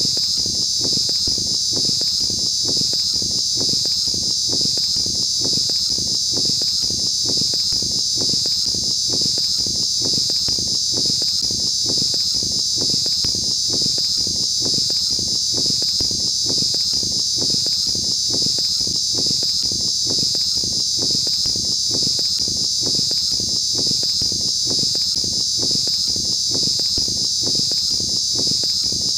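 A cicada singing: a loud, steady, high-pitched buzz that holds one pitch without a break.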